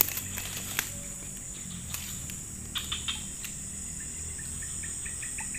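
Outdoor insect chorus: a steady high drone with a rapid chirping call, about five chirps a second, joining near the end. A few scattered light clicks are heard in the first half.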